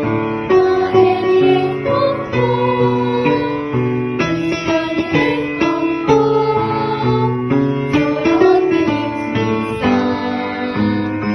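Children's exercise song: an upbeat melody on instrumental backing, with female voices singing the lyrics.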